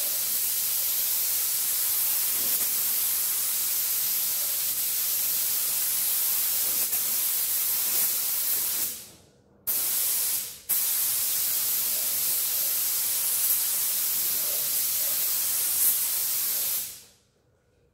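Air-driven gravity-feed paint spray gun hissing as it sprays primer. The hiss breaks off twice, each time for under a second, about halfway through as the trigger is let go, then cuts off shortly before the end.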